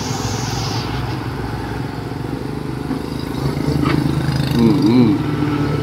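Tracked rice combine harvester's diesel engine running under load as the machine crawls up a steep ramp, getting louder and heavier a little past halfway.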